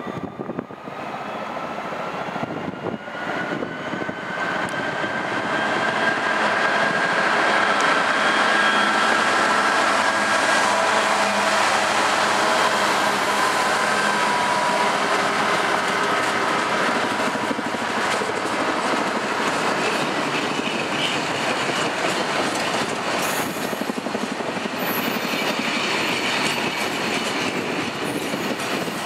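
Class 66 diesel-electric freight locomotive, with its two-stroke V12 diesel, passing close at speed with a train of loaded ballast wagons. The engine note grows and rises as it approaches over the first few seconds. After the locomotive has passed, the wagons roll by with a steady rumble and clatter of wheels over the rail joints.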